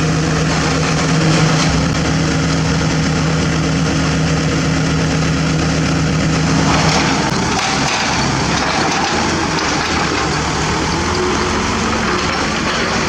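Heavy diesel construction machinery running steadily with an even engine hum; about six and a half seconds in, the steady tone gives way to a rougher, noisier mechanical sound.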